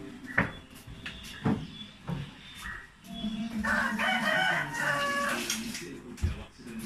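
A rooster crowing once, a long pitched call starting about three seconds in and lasting some two seconds. Before it come two sharp knocks.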